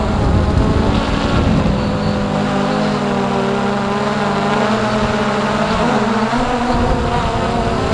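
Hubsan X4 Pro quadcopter's motors and propellers whirring in flight, as picked up by its own onboard camera. Several steady tones drift slightly in pitch as the motors adjust, over a low rumble.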